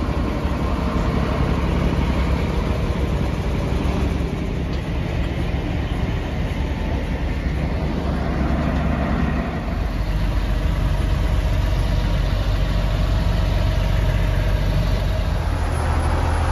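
Large vehicle engines idling steadily, a continuous low rumble that grows deeper and stronger about halfway through.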